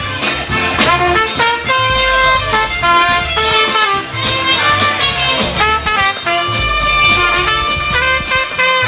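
Live New Orleans-style brass jazz: a trumpet plays the melody close by over a steady, moving bass line.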